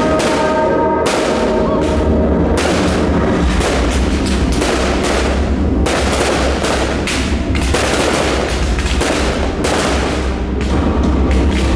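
Fireworks display: a rapid, continuous series of firework explosions and crackling bursts, with music playing underneath.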